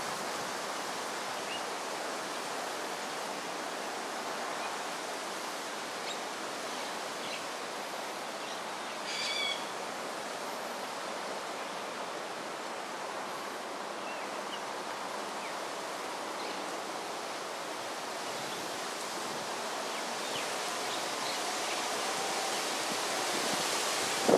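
Steady outdoor background hiss, with a short high bird call about nine seconds in and a few faint chirps.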